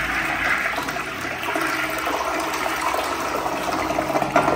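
Ceramic toilet flushing: a strong rush of water swirling down the bowl, tailing off near the end. It is a powerful flush, likened to a floodgate release.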